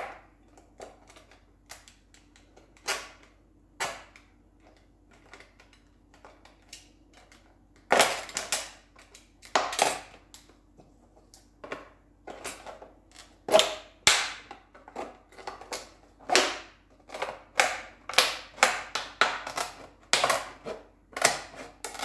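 Thin plastic drink bottle being cut through with scissors: irregular crackles and snips of the plastic, sparse at first and coming thick and loud from about eight seconds in.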